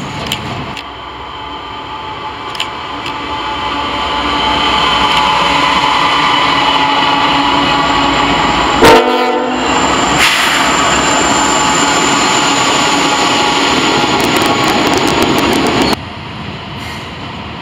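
Norfolk Southern diesel freight locomotives approaching and passing close by: the engine sound builds over the first few seconds and then holds steady and loud. A short, very loud horn blast comes about nine seconds in. Near the end it drops suddenly to the quieter sound of a passing train.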